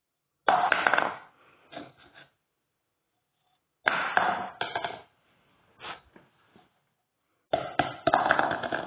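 Plastic cups dropped onto a wooden parquet floor, clattering as they hit and bounce. It happens three times: about half a second in, at about four seconds, and at about seven and a half seconds. Each time there is a sharp first hit followed by a few lighter bounces.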